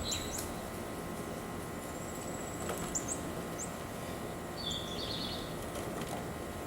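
Small bird calling outdoors: short high chirpy phrases, one about two-thirds of the way through, and a thin high whistle with quick upward flicks in the middle, over a steady background hum.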